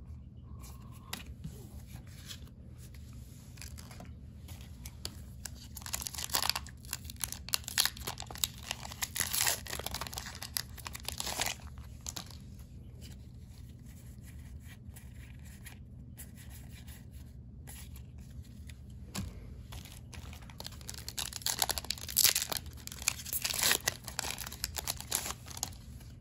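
Foil booster pack wrappers being torn open and crinkled, in two spells of rustling, about a quarter of the way in and again near the end, with trading cards handled more quietly in between.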